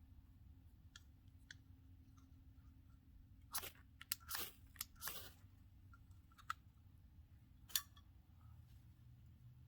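A few short, sharp crunches and snaps clustered around the middle, with one more near the end, over a faint low hum.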